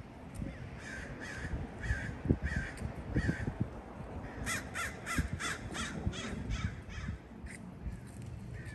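Crows cawing: a run of about five caws, then a quicker run of about seven near the middle, then a couple of single caws. Irregular low thumps sound underneath.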